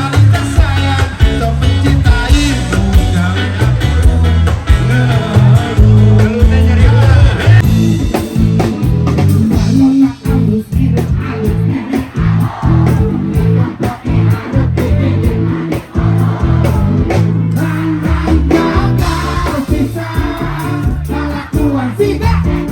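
Music: a song with singing over guitar and a steady bass beat.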